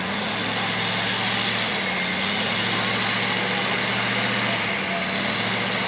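Duramax turbo-diesel V8 in a GMC pickup held at steady revs against the brakes while hooked to a pulling sled, building boost before launching. Its note wavers slightly in pitch a couple of times.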